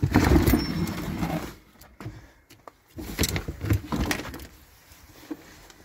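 A bicycle being handled and pulled out of a car's boot: loud rattling and clattering of metal for the first second and a half, then a string of separate knocks and clicks.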